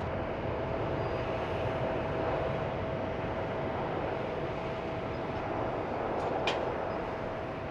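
Boeing 747-400's jet engines running as the airliner rolls along the runway after landing: a steady rumble with a steady whine running through it. A single sharp click about six and a half seconds in.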